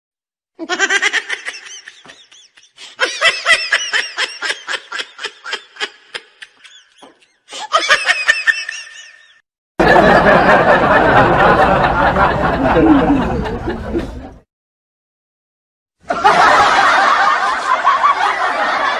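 Human laughter in several stretches split by short silences. It starts with a rapid, rhythmic ha-ha cackle that breaks off a few times, then turns into denser, noisier laughter.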